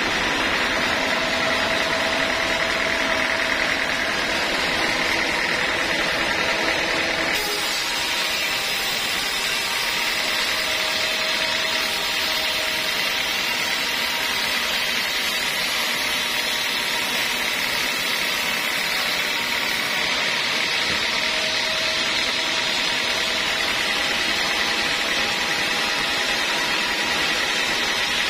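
Homemade band sawmill running steadily and sawing through a teak log, with a steady whine from the machine. The sound changes about seven seconds in.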